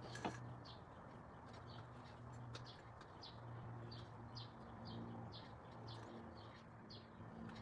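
A bird chirping over and over in short, high notes, about once or twice a second, over a steady low hum. A single sharp clack sounds just after the start.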